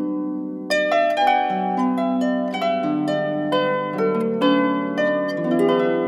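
Background music of plucked string notes, a gentle melody of several notes a second ringing over lower held notes.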